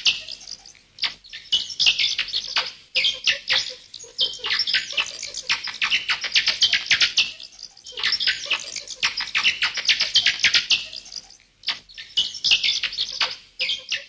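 Bats squeaking and chittering: rapid, high-pitched squeaks and clicks in spells of two to four seconds, with short pauses between them.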